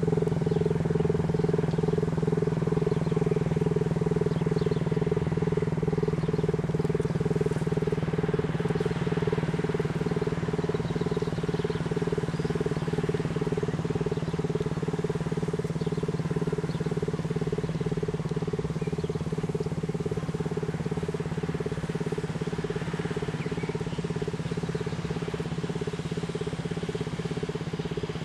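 Elektror L1 electromechanical motor siren, the nine-port high-tone unit of a WWII-era L1/F2 siren (about 430 Hz), sounding a steady held tone with a fast even wavering, fading slightly over the span.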